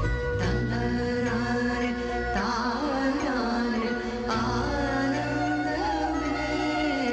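Background song: a sung melody over sustained instrumental accompaniment and a steady bass.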